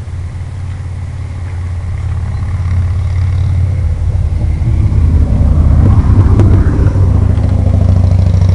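Low, steady engine hum that grows louder from about two seconds in.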